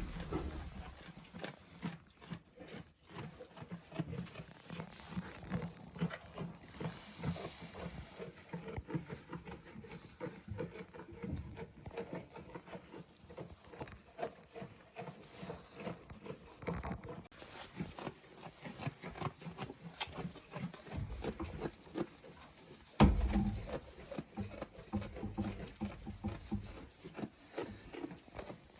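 Goats moving about in their pen with low grunting calls, amid steady rustling and small knocks; one louder knock comes about 23 seconds in.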